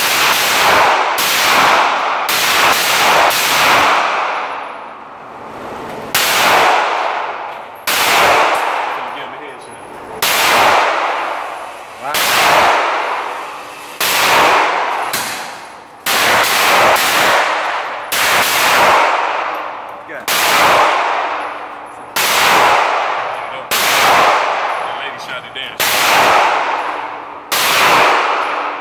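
Gunshots in an indoor firing range, fired one at a time: each a sharp crack with a ringing, echoing tail off the range walls, about twenty in all. A quick cluster comes at the start, then shots follow every second or two.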